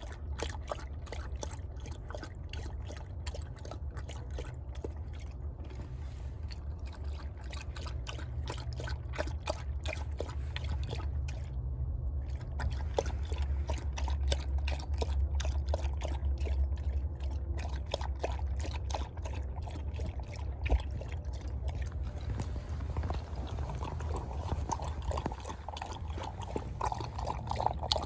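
A dog lapping water from a glass bowl: a quick, regular run of wet laps, with a brief pause about twelve seconds in, over a steady low hum.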